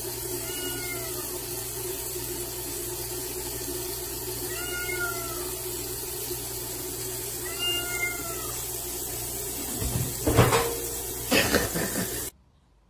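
A cat meowing three times, each call short and rising then falling, over a steady hum. About ten seconds in come two loud clattering knocks as the toilet seat drops.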